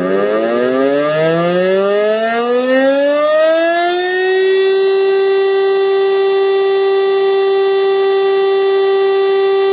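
DS 977 electric motor siren sounding a weekly test alarm. It winds up with its pitch rising for about four seconds, then holds a loud, steady tone.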